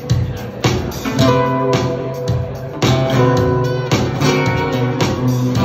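Acoustic guitar strummed in a steady rhythm, a chord about every half second, the notes ringing on between strokes.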